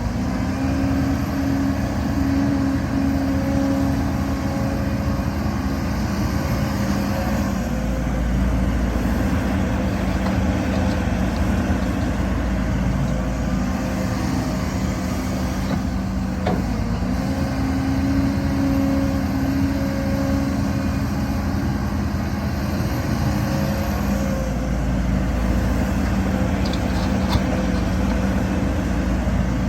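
Heavy diesel earthmoving machinery running steadily, its engine note shifting up and down a few times as it works.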